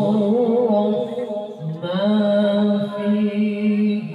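A male qari recites the Qur'an in melodic tilawah style into a microphone. He holds long sung notes with wavering ornaments, and the note changes after a brief dip about two seconds in.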